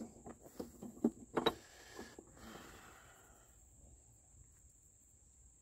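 A few faint clicks and taps of metal parts being handled at a self-propelled mower's front wheel drive, mostly in the first second and a half. After that it is quiet apart from a faint steady cricket chirring.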